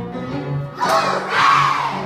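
Piano accompaniment playing chords, with a group of children shouting out together for about a second near the middle, the loudest moment.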